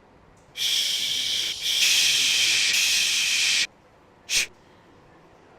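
A long, loud 'shh' shush hiss with a brief break about a second in, followed by two short, sharp hisses.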